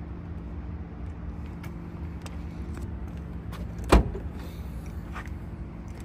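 Trunk latch of a 2025 Toyota Camry releasing, one sharp clunk about four seconds in as the trunk lid pops open, over a steady low hum.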